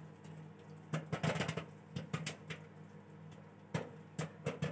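Microwave popcorn popping inside a running microwave oven: irregular sharp pops, a quick cluster of them about a second in and a few more near the end, over the oven's steady low hum.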